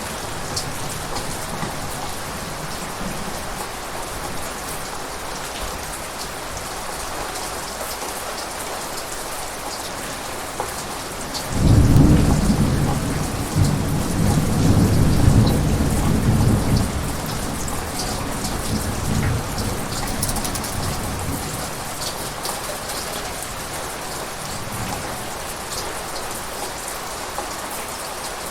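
Steady rain falling, with a clap of thunder about twelve seconds in whose low rumble rolls on for several seconds and fades away.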